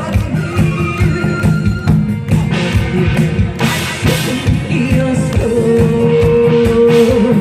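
Guzheng played over a loud trot backing track with a steady beat, with a long held note near the end.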